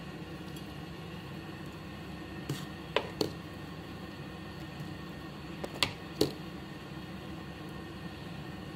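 A metal ladle clinks sharply against a steel pot a few times, in two quick pairs about three seconds apart, over the steady hiss of broth simmering.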